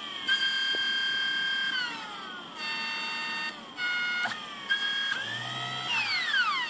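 Nidec 50M060B012 brushless DC motor from an HP 2605 laser printer running with a high whine. Its pitch shifts as the speed setting is changed: it holds steady, glides down, breaks off and returns at other pitches, and falls steeply near the end as the motor slows. There is a sharp click about four seconds in.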